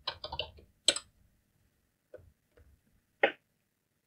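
Computer keyboard keystrokes: a quick run of typing, then a single sharper key press about a second in, followed by a few scattered, fainter clicks and one firmer click near the end.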